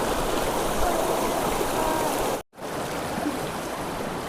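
River water flowing steadily. The sound cuts out for a split second a little past halfway and returns slightly quieter.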